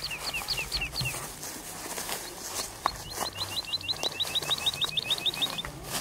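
A songbird singing: a short run of repeated high notes at the start, then a longer, fast run of the same note repeated about sixteen times from about halfway. Underneath, light rustling and crackling of footsteps on dry leaf litter.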